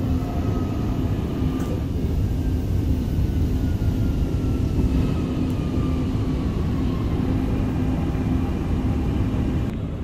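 Dubai Metro train heard from inside the car: a steady low rumble as it slows into a station, with a faint electric whine that falls slowly in pitch while it brakes, fading out about seven seconds in.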